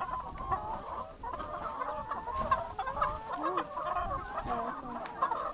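A flock of laying hens clucking and calling together, many short overlapping calls at once.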